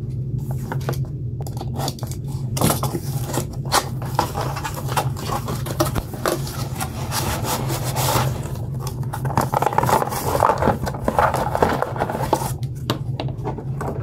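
Cardboard box being opened and handled: flaps rubbing and scraping, with irregular knocks and rustling, busiest in the second half. A steady low hum runs underneath.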